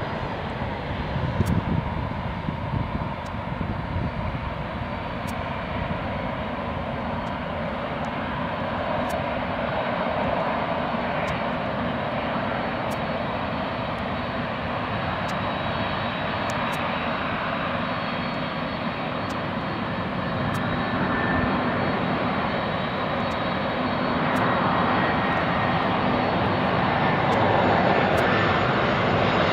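Jet engines of a Boeing 747, a steady roar that grows gradually louder.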